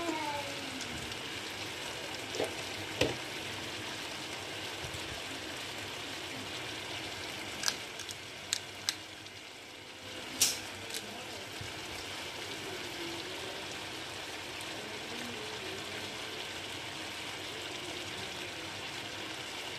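Peanuts in their shells cooking in a stainless steel frying pan, with a steady sizzling hiss as the last of the boiling water cooks off. A few sharp clicks come through: two at about two and three seconds in, and a cluster around eight to ten seconds in, the loudest of them near halfway.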